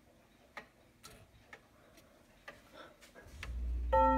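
Grandfather clock movement ticking softly, then a low rumble builds and, near the end, the first chime rod is struck and rings out as the clock begins its hour chime.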